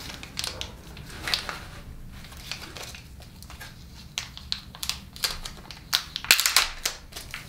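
Reciprocating saw blade being worked out of its packaging by hand: crinkling and rustling with scattered sharp clicks, the loudest cluster about six seconds in.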